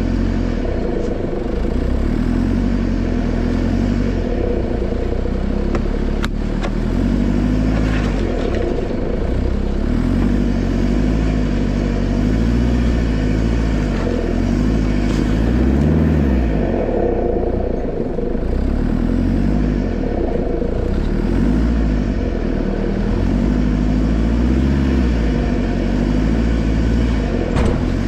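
2003 Nissan Patrol Y61's 3.0-litre four-cylinder turbodiesel working up a rocky climb, its revs rising and falling as the truck crawls over the rocks. A sharp knock about six seconds in.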